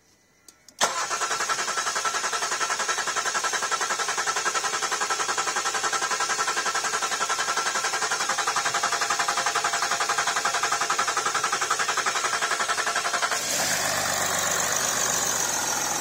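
Range Rover Sport engine cranked by its starter motor: a click about a second in, then a steady pulsing turnover for about twelve seconds, until it catches near the end and settles into a smooth idle. It is being started on fuel from an external supply that bypasses the low-pressure fuel system, the workaround for a no-start that only cranked.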